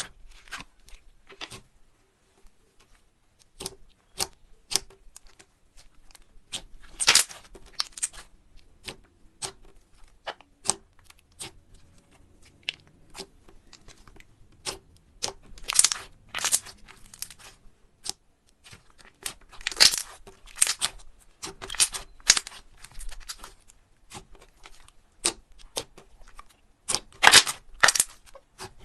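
Slime being squeezed and stretched by hand: a steady run of sharp pops and clicks, with longer crackling bursts every few seconds.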